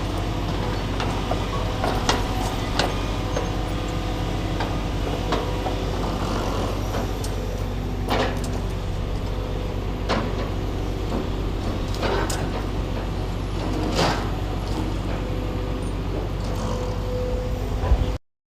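Heavy diesel forestry machinery running steadily, with occasional sharp knocks and clanks scattered through it.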